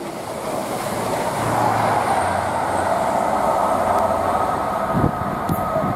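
Class 43 HST (Intercity 125) diesel train approaching, its power car's engine and running noise swelling over the first second or so and then holding loud and steady. A steady whine runs through the middle, and there are two short thumps about five seconds in.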